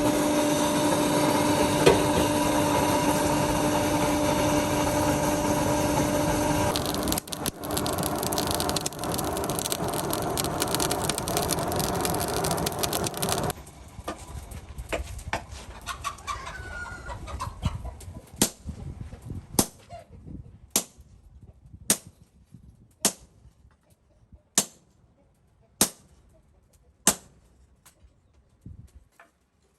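A rooster crowing amid a loud steady rushing noise that drops away about halfway through; then about eight sharp strikes on metal, evenly spaced a little over a second apart, as from a hammer.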